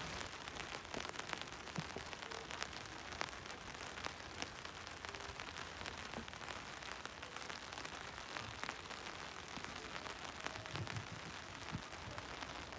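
Steady rain falling, an even hiss dotted with many separate drop ticks close by.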